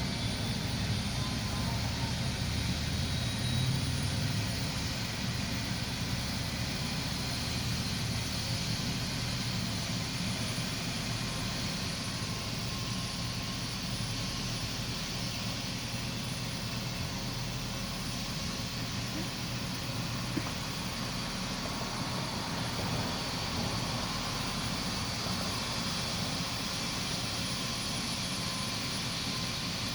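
Air ambulance helicopter running on the ground with its engine and rotor turning steadily, a low rotor beat under a thin high whine, idling before takeoff.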